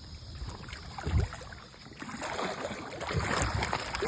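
Water splashing and handling noise, with a dull thump about a second in and the splashing growing louder in the second half.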